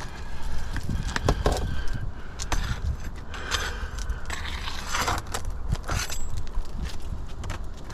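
Scraping and crackling of asphalt roof shingles being worked by hand, with scattered sharp taps and clicks.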